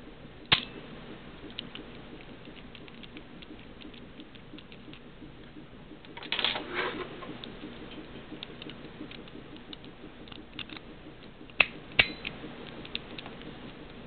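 Small metallic clicks and rattles of lock picks and a tension wrench working in a brass wafer padlock as it is handled: scattered light ticks, a sharp click about half a second in, a short rattling cluster around the middle, and two sharp clicks close together near the end.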